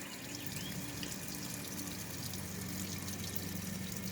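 Water trickling and dripping as it drains out of a freshly hosed-down air conditioner condenser coil, steady throughout, over a faint steady low hum.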